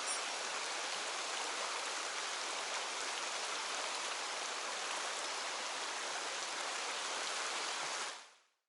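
Mountain stream water rushing steadily, an even hiss of flowing water that fades out near the end.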